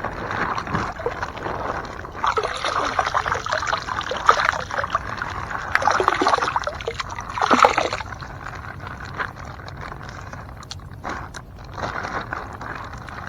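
Lake water sloshing and trickling beside a kayak as a large piece of floating plastic is pulled from the water, with small knocks and rustles. Busiest for the middle few seconds, then quieter with a few scattered clicks.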